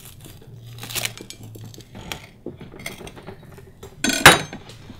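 Kitchen knife sawing through a toasted grilled cheese sandwich, the crisp crust crackling and crunching under the blade. Near the end there is a short, louder scrape of the metal blade against the plate.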